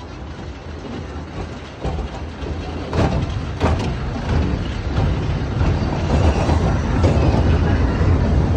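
Wooden roller coaster train rolling along the track into the station: a low wheel rumble that grows louder, with several sharp clacks in the first half.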